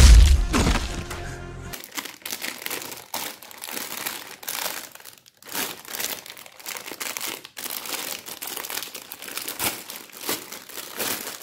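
A loud burst of trailer audio with music cuts off about two seconds in. Then a clear plastic bag crinkles in uneven bursts as a toy mask inside it is handled and unwrapped.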